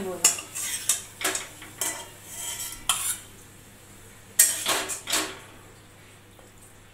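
Spatula scraping and knocking against a metal kadai and a stainless steel bowl as cooked food is scooped out and served: a run of separate scrapes and clinks, the sharpest about four and a half seconds in, stopping before the end.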